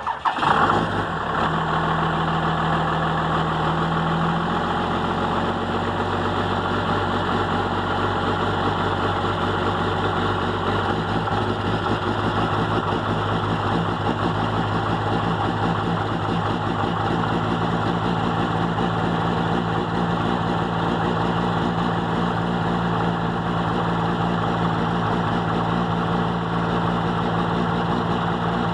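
Dodge Ram's Cummins inline-six diesel engine started cold at -8 degrees with no block heater: it surges briefly about half a second in, then settles into a steady idle.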